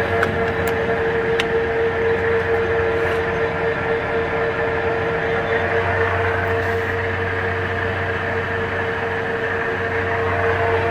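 Birmingham SY-1440 lathe running with its spindle turning: a steady mechanical hum with a constant whine from the geared headstock.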